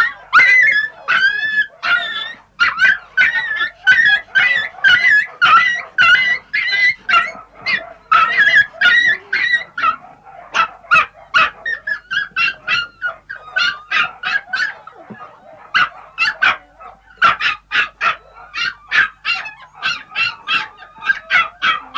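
Several puppies yipping, whining and barking without a break, their high calls overlapping. Drawn-out whines are more common in the first half and quick short yaps in the second, with a brief lull about two-thirds of the way through.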